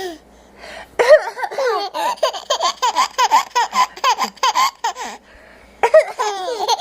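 A young child laughing hard: a long run of quick, rhythmic laughs starting about a second in, a short break near the five-second mark, then another burst of laughter.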